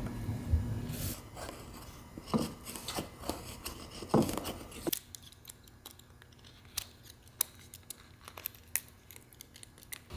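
Knife whittling small dead cedar branches by hand: a few scraping strokes, then a run of short, sharp clicks and snicks as shavings come off the dry wood.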